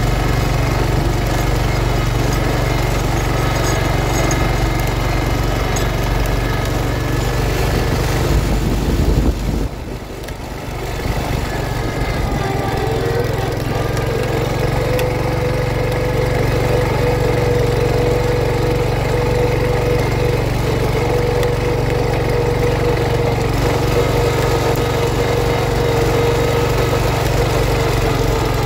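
1971 John Deere 140 H3 garden tractor's engine running steadily, first while pulling a Brinly sleeve-hitch plow through soil, then with the plow raised as it drives across the lawn. The engine dips briefly about ten seconds in, and a steady whine joins from about halfway through.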